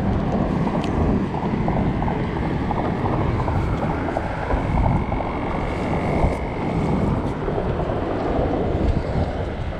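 Wind buffeting the microphone: a steady, low rumbling noise with no distinct events.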